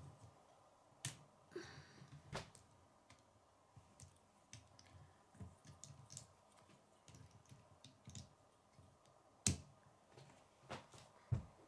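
Plastic K'nex rods and connectors clicking and rattling as they are handled and pushed together, with a few scattered sharp clicks among quieter handling noise.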